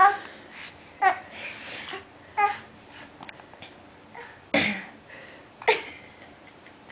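A baby with hiccups babbling and laughing in short separate bursts about a second apart, the two loudest and sharpest coming past the middle.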